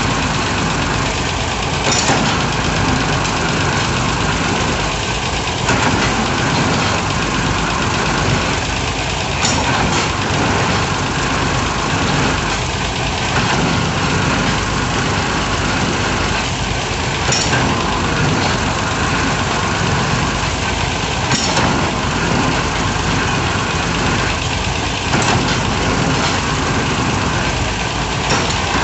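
Heavy diesel engine of a hydraulic piling rig running steadily, with a sharp knock every few seconds.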